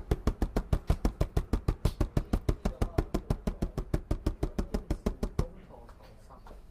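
Rapid, even tapping or knocking, about eight taps a second, that stops abruptly about five and a half seconds in.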